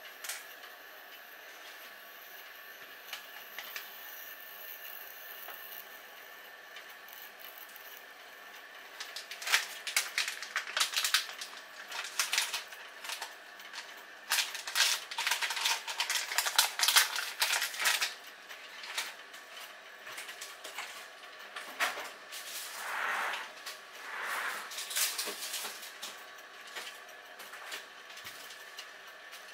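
A homemade aluminium-can alcohol stove burning under a steamer pot with a faint steady hiss. From about a third of the way in, several seconds of rapid crackling and rattling come from the steaming pot, then a few scattered rattles.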